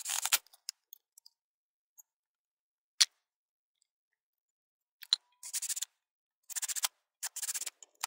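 Cordless drill driving screws through tire irons into a wooden block in short bursts: one at the start, then three close together near the end, with a few single clicks between.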